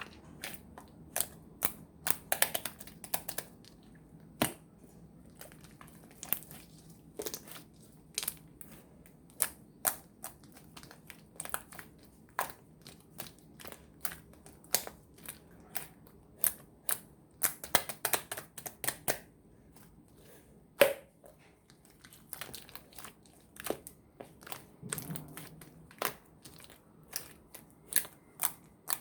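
Slime being squeezed and poked by hand, giving irregular sharp clicks and pops, some in quick clusters. The loudest pop comes about two-thirds of the way through.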